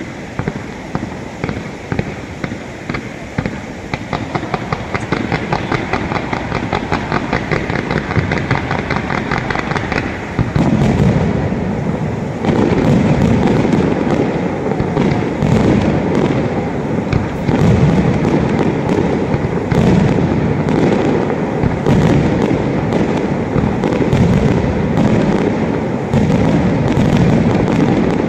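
Fireworks display: a rapid, even string of shots for about the first ten seconds, then a louder, denser barrage of aerial shell bursts from about ten seconds in.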